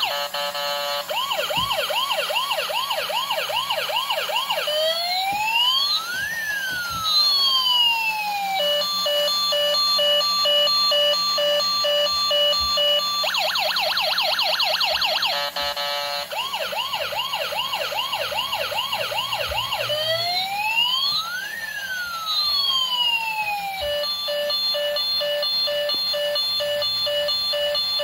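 Electronic emergency-vehicle siren cycling through its tones, twice over: a very fast warble, a quick repeated yelp, one slow rising and falling wail, then a steady hi-lo two-tone, with the sequence starting again about every 13 seconds.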